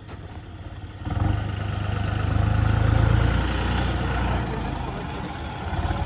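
Tractor diesel engine running close by, its level jumping up about a second in as it is revved, then easing back and picking up again near the end.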